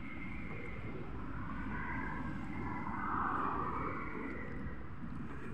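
Outdoor ambience: a steady low rumble with a brief louder swell about three seconds in.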